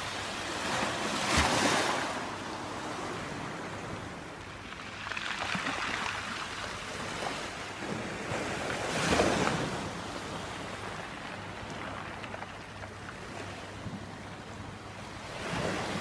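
Small sea waves breaking and washing over a pebble shore. The hiss swells and fades every few seconds, loudest about a second and a half in and again about nine seconds in.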